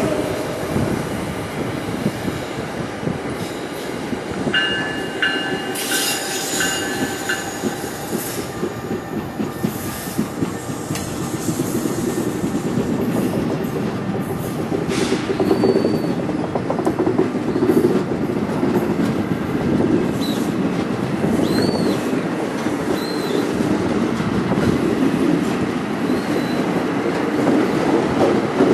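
Commuter train rolling along the platform, wheels clicking over the rail joints under a steady rumble. About five seconds in a high steady squeal sounds for a few seconds, and short high wheel squeaks come later.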